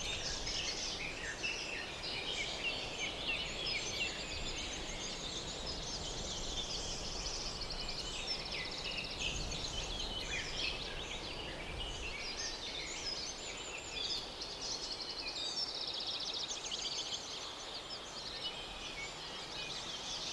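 A chorus of many small birds chirping and trilling at once, with fast trills and short calls overlapping throughout.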